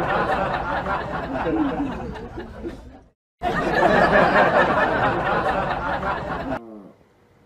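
Several people's voices and laughter in a dense mix, in two stretches split by a brief silent cut about three seconds in, ending with a short falling call.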